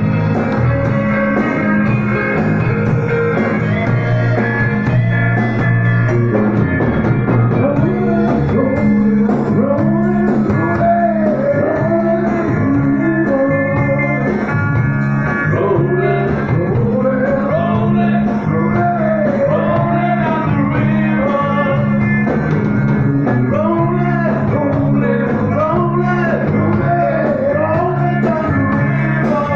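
Live blues-rock band playing loud, led by electric guitar, with a lead line of notes bending up and down from about eight seconds in.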